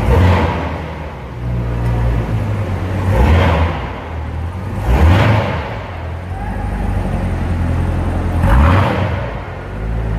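Chevrolet Corvette Z06's supercharged V8 idling low and revved in four short blips, each rising and falling quickly, the first right at the start and the others about three, five and eight and a half seconds in.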